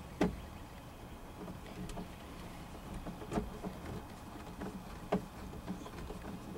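Screws being driven by hand into the plastic instrument cluster of a Dodge Caravan's dash: three sharp clicks, just after the start, about halfway and about two-thirds through, with fainter ticks and scrapes between over a low background rumble.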